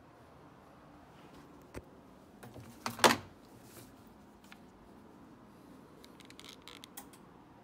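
Handling sounds: a sharp click, then one louder knock about three seconds in, and a few light clicks near the end as a TV remote's buttons are pressed.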